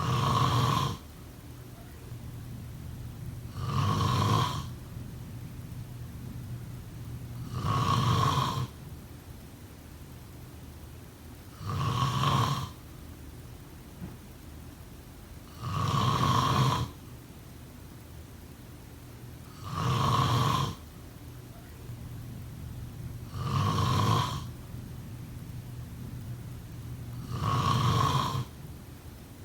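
A person snoring in a steady rhythm, one loud snore about every four seconds, each lasting about a second.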